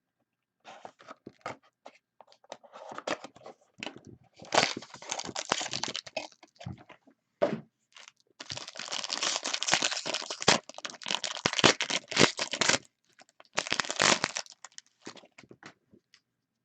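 Plastic wrapping being torn and crinkled off a sealed box of hockey cards as it is opened, in several spells of tearing and crackling, the longest in the second half.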